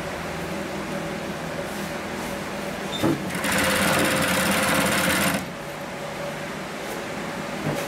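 HR-4N industrial single-needle three-thread overseaming sewing machine running, with a click about three seconds in and then a louder, fast run of stitching for about two seconds before it drops back to a quieter steady running.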